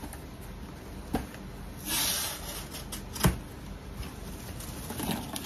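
Brown packing paper rustling and crinkling as it is handled and pulled out of a cardboard box, in a few short bursts, with a couple of sharp knocks about one and three seconds in.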